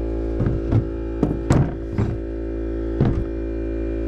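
A steady, unchanging hum with about six short knocks and clicks in the first three seconds, from a chainsaw being handled and turned over while its bar and chain are inspected.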